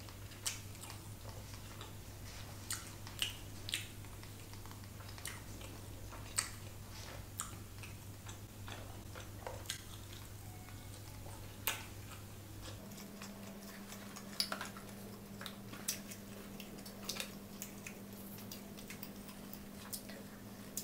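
Close-up eating sounds: a wooden spoon tapping and scraping in a paper food cup, with chewing and mouth clicks, heard as irregular sharp clicks. A steady low hum lies underneath and shifts higher about two-thirds of the way through.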